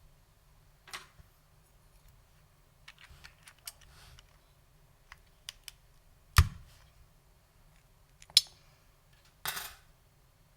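Scattered keystrokes on a custom 60% keyboard with lubed SKCL Green Alps switches: single clicks and short runs with pauses between them. The loudest strike, about six seconds in, carries a low thump, and a quick cluster of keys follows near the end.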